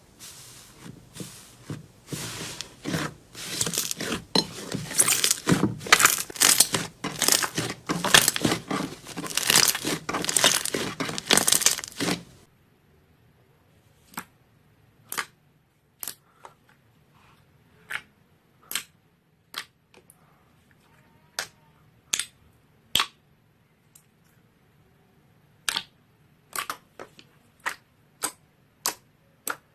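Slime being squeezed and worked by hand: dense crackling and crunching for about twelve seconds, then the sound cuts to sparse, sharp pops and clicks about once a second.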